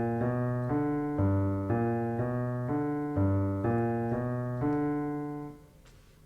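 Piano playing a blues pattern: a walking bass line in the left hand, one note a beat, under right-hand chords, steady at about two beats a second. The playing stops about five and a half seconds in.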